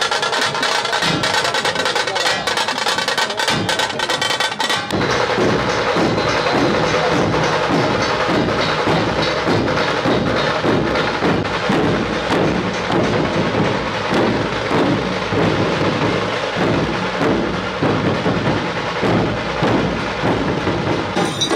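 Dhol-tasha drum troupe playing: fast, dense tasha drumming, then about five seconds in an abrupt change to a steady, even beat of the large barrel dhols with the tashas rattling over them.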